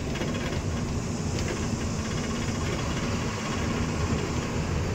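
Truck running down the road: a steady low engine drone and road rumble with a faint even hum.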